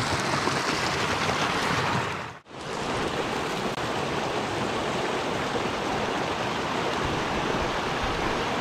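Steady rushing of a small mountain headwater stream running over rocks and little cascades. The sound drops out for a moment about two and a half seconds in, then comes straight back.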